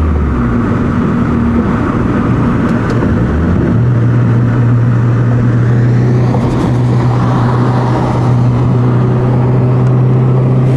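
Turbocharged four-cylinder car engine running hard under way, a loud steady drone that steps up in pitch about four seconds in and then holds.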